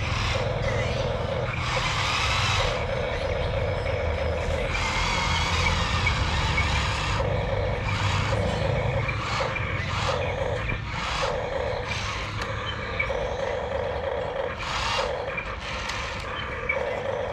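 Electric gear motors of a hobby RC excavator whining in short start-stop spells as its arm, boom and tracks are worked, with a few louder, harsher bursts between them.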